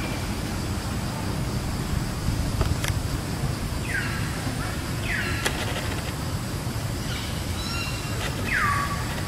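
Outdoor ambience: a steady low rumble of distant traffic, with three short calls that slide down in pitch, typical of birds, about four, five and eight and a half seconds in.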